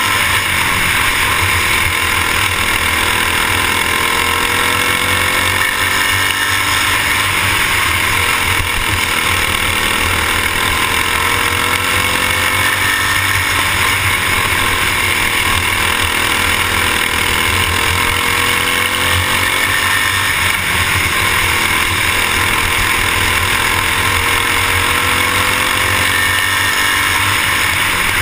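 Racing kart engine at speed, heard from a camera mounted on the kart: loud and steady, its pitch climbing along the straights and dropping back into the turns every several seconds as it laps the track.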